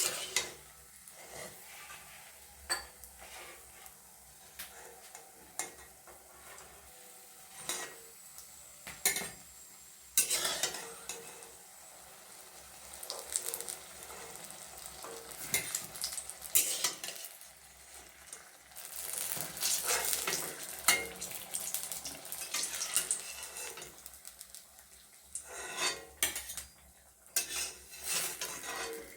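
Metal spatula scraping and clinking against a kadhai as fried brinjal pieces are lifted out of hot mustard oil, with the oil sizzling. The clinks come at irregular intervals.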